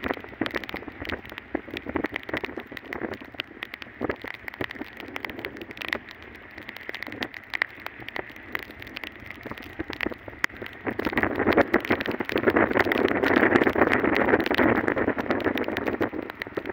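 Rain striking the phone and the rider's raincoat on a moving two-wheeler, a dense patter of drops over the noise of riding on a wet road, growing louder for a few seconds from about eleven seconds in.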